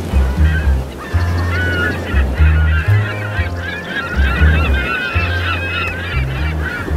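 A flock of birds calling over each other in a dense, honking chatter, over music with a pulsing bass line.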